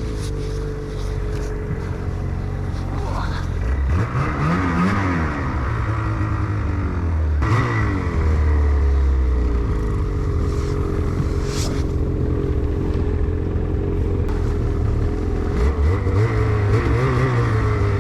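Snowmobile engine running hard, its pitch rising and falling as the throttle is worked, with revs climbing about four seconds in and again near the end.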